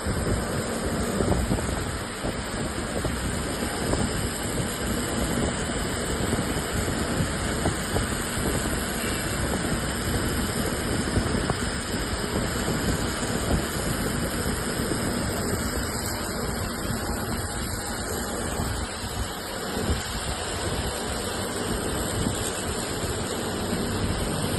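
Steady hum and rumble of running industrial machinery.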